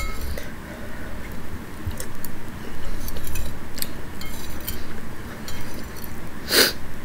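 Metal spoon clinking and scraping in a bowl of soup as broth is scooped, a few light clicks spread apart, with one louder short noise near the end.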